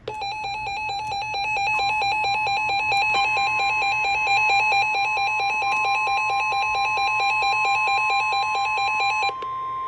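Weather alert radio sounding a warning: rapid electronic alarm beeping, joined about two seconds in by the steady 1050 Hz NOAA Weather Radio warning tone. The beeping stops near the end while the steady tone carries on.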